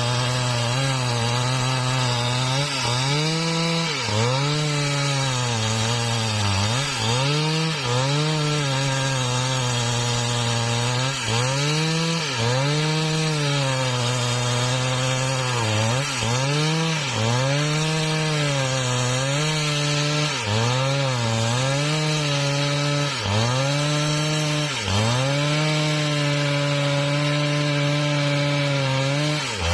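Husqvarna 395XP two-stroke chainsaw running at high revs while splitting a mahogany log. Its engine note dips and recovers every second or two as the chain bites under load.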